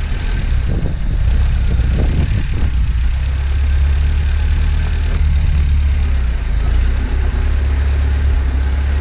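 1978 MGB's 1.8-litre B-series four-cylinder engine idling steadily.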